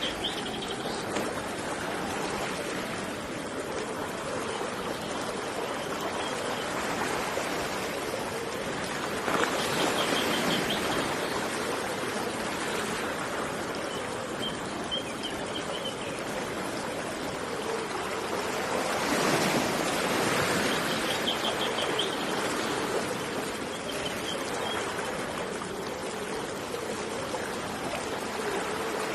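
Steady rushing of river water that swells louder twice, with a bird giving short, rapid series of high notes every few seconds.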